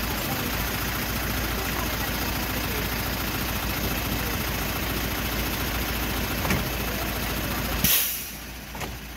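Heavy truck and bus engines idling in stopped traffic, a steady low rumble. About eight seconds in comes a brief loud hiss, and the rumble drops away for a moment after it.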